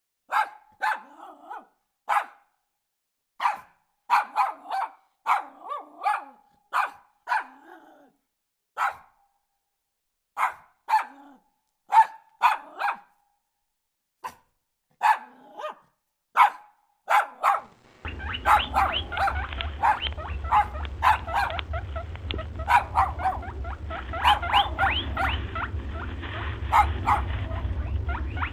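A dog barking in short, separate barks with gaps between them. About two-thirds of the way through, the sound changes to a rapid run of barks over a steady low hum.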